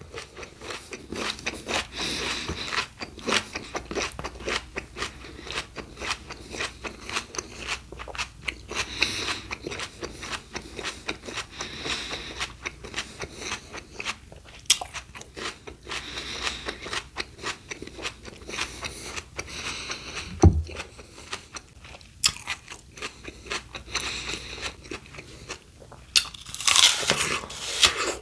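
A person chewing crunchy raw fruit and vegetables close to the microphone: a steady run of crisp crunches, louder and denser near the end.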